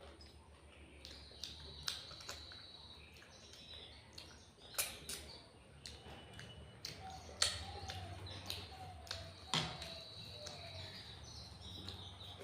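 Close-up eating sounds: chewing and lip smacks with a few sharp clicks spread out, while birds chirp faintly in the background.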